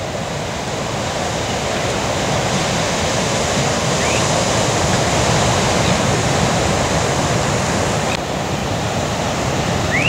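Ocean surf breaking: a steady rush and roar of waves and whitewater. A short rising chirp sounds about four seconds in and again near the end.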